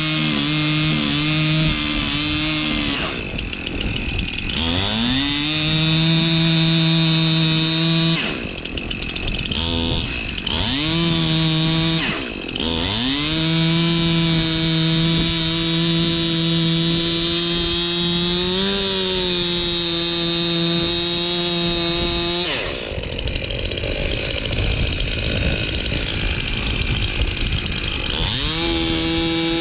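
Chainsaw running at high revs, its engine pitch sinking and climbing back about four times as it slows and recovers.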